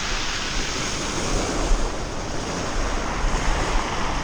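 Ocean surf washing steadily against the shore, with wind buffeting the microphone in low rumbles.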